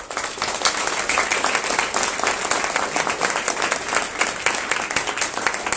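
Audience breaks into applause, loud and steady, many hands clapping.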